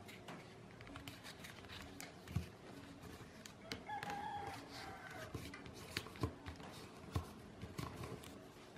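A sheet of A4 paper rustling and crackling as it is folded and creased by hand, with sharp taps and clicks from the creasing. A rooster crows once in the background about four seconds in, one drawn-out call lasting over a second.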